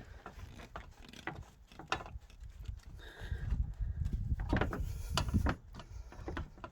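Rubber coolant hose on a VN Commodore radiator being twisted and wiggled back and forth to work it off the radiator neck: irregular rubbing, clicks and knocks, with a louder low rumble through the middle.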